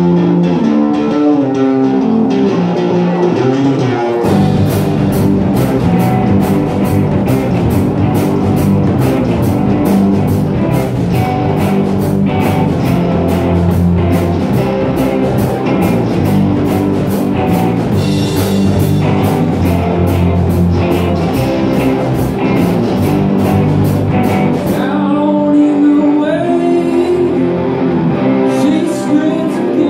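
Live rock band of electric guitars, electric bass and drum kit playing a rock song: a guitar riff alone at first, the full band with drums coming in about four seconds in, and the drums dropping out for a few seconds near the end.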